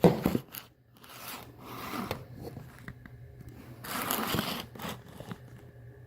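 Hand-handling noises: a few short scraping, crackling rasps, the loudest right at the start and another about four seconds in.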